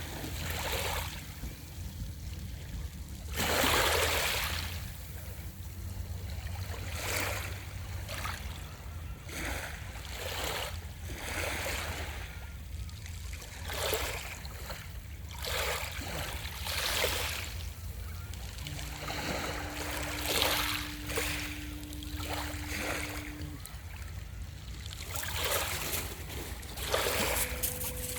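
Small ocean waves washing and lapping at the shore in irregular swells, one larger wash about four seconds in, over a low steady rumble. A faint steady hum comes in for a few seconds past the middle and again near the end.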